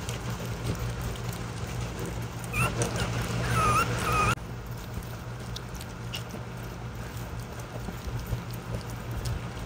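French bulldog puppies eating wet mush from a stainless-steel puppy feeder: a run of small wet clicks and lapping. About three to four seconds in, a few short high puppy whines rise over the eating, then stop abruptly.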